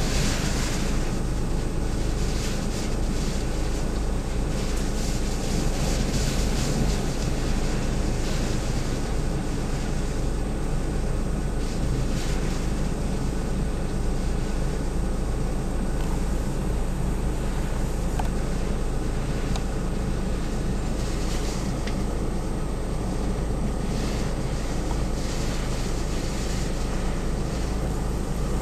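Strong typhoon wind buffeting the microphone in a steady low rumble, with gusts swelling every few seconds.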